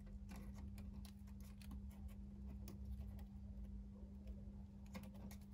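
Faint scattered ticks and clicks of chicken wire being bent and twisted together by hand, over a steady low hum.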